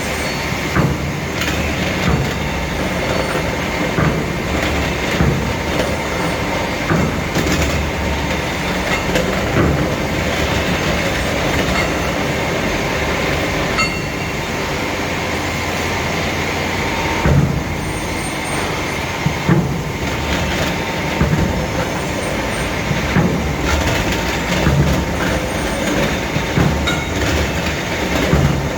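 Machinery running with a continuous loud rattle and clatter, broken by irregular knocks about once a second, over a faint steady whine.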